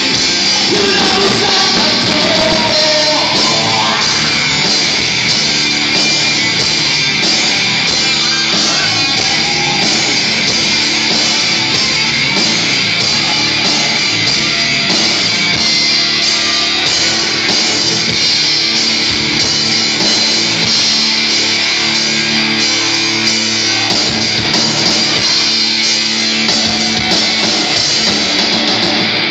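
Live band playing loud rock-style music with singing.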